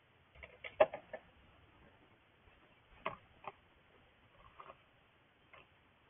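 Irregular taps and knocks from a bluebird's claws on the nest box as it perches at the entrance hole and clambers inside: a quick cluster of knocks about a second in, the loudest of them sharp, then a few single taps.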